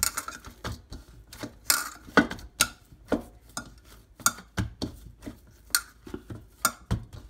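Hands kneading a stiff, rested dough in a stainless steel bowl, pressing and folding it to make it smooth, with uneven knocks and scrapes of the steel bowl about two or three times a second.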